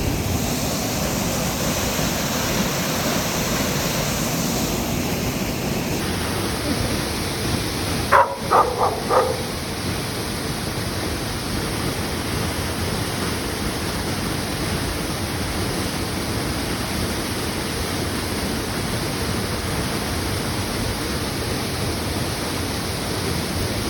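Steady rush of falling water from a waterfall and creek. About eight seconds in come four short, sharp calls.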